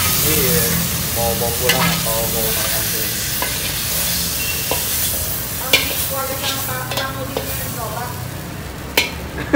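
Fried noodles sizzling in a hot wok while a metal spatula scrapes and stirs them out, the sizzle slowly dying down. Several sharp clanks of the spatula against the wok, the loudest near the end.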